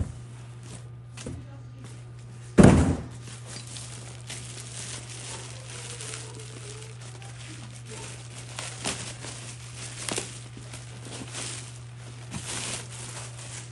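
Box and packaging being handled during an unboxing: one loud thud about two and a half seconds in, then scattered knocks, clicks and rustling, over a steady low hum.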